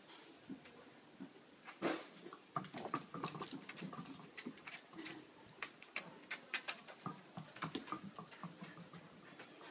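Dogs at play on a wooden deck: claws clicking and scrabbling irregularly on the boards, with short play noises from the dogs, loudest about two seconds in and again near the end.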